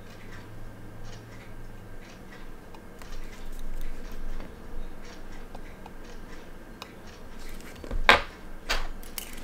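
Faint clicks and taps of steel tweezers against a tiny quartz watch movement as a plate screw is set in place, with two louder clicks near the end.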